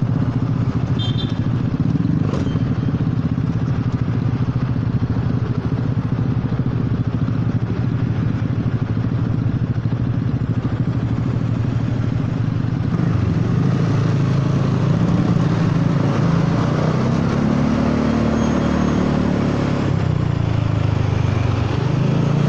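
Honda Forza 300 scooter's single-cylinder engine, heard from the rider's seat, running steadily at low speed and then pulling away, its note rising and falling with the throttle from about halfway through.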